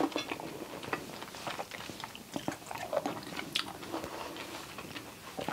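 A person chewing fresh cherries close to the microphone: irregular wet mouth clicks and soft bites.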